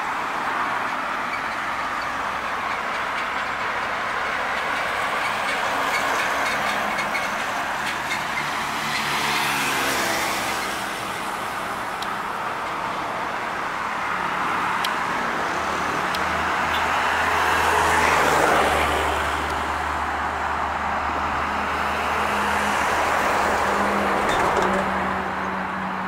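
Heavy diesel trucks passing on a highway one after another: engine drone and tyre noise swell as each goes by, with the pitch dropping as one passes about ten seconds in and the loudest pass about eighteen seconds in.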